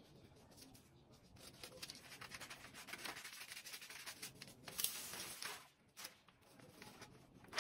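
Brown kraft pattern paper rustling and scraping as it is trimmed with scissors and handled on the floor, getting louder after the first couple of seconds.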